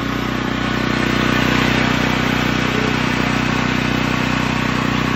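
Small engine running steadily at a constant speed on Hythanol, a hydrogen-based liquid fuel drawn into its carburetor from a beaker.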